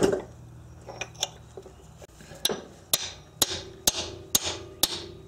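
A three- to four-pound hammer strikes a cold chisel wedged against a 2006 Acura TL's front axle at the transmission, driving out an axle so stubborn it bent the pry bars. A few light taps come first, then from about halfway in six sharp blows land about two a second, each with a short metallic ring.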